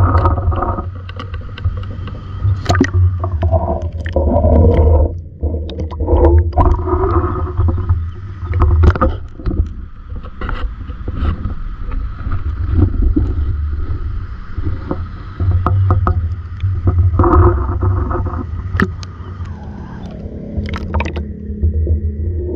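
Loud low rumbling and knocking of a handheld camera being moved about close to the microphone, with scattered sharp clicks and scrapes. Near the end the high sounds fall away, leaving a muffled steady hum as the camera goes under the ditch water.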